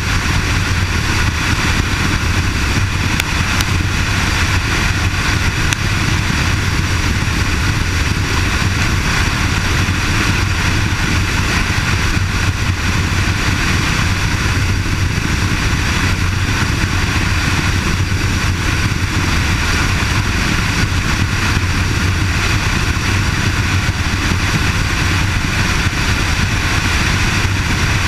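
Kawasaki KLR650's single-cylinder engine running steadily at highway cruising speed, mixed with wind and road noise.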